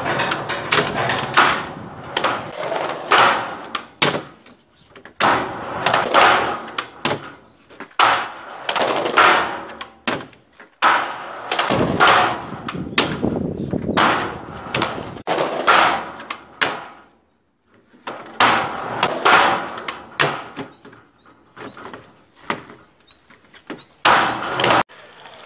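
Skateboard wheels rolling over concrete and up a metal ramp, with sharp board slaps and clattering impacts from tricks and landings. The runs come in short stretches that start and stop abruptly.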